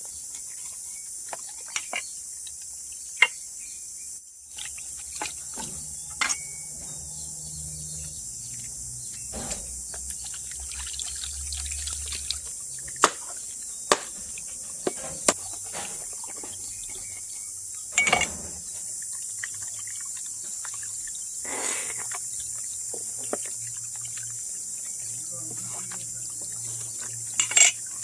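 Steady high-pitched chorus of insects, with scattered sharp clicks and knocks of handling throughout and a few louder knocks.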